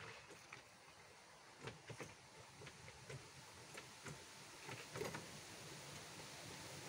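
Near silence with a few faint, scattered clicks and taps, the most distinct about two seconds in and again about five seconds in.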